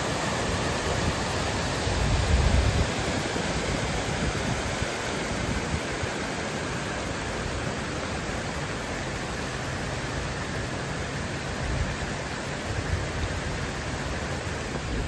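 Muddy floodwater rushing along a garden path: a steady, even rush of water. There are a few low bumps about two seconds in and again near twelve seconds.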